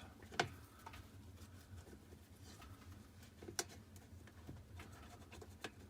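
Faint scratching of a cotton swab being scrubbed through small holes in a washing machine part to work loose black gunk, with a few sharp clicks.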